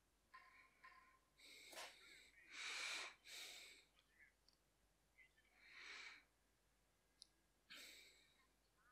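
Near silence with a few faint breaths into a close microphone, the longest about two and a half seconds in.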